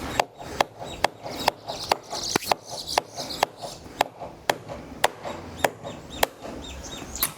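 A tool striking wood in a steady series of sharp chops, about two a second.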